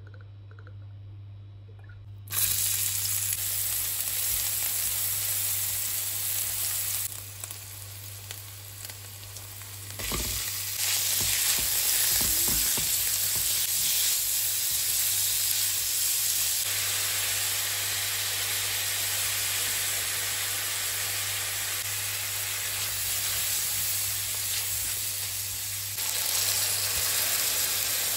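Crumbled sausage and chopped onion sizzling in a frying pan while a wooden spatula stirs them. The sizzle starts suddenly about two seconds in, drops away for a few seconds, then returns with a few low knocks from the stirring.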